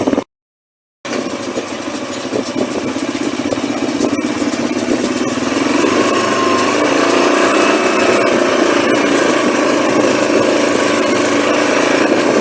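Tractor engine running steadily while working a round baler. The sound drops out briefly just after the start, then grows louder with a slight rise in pitch about six seconds in.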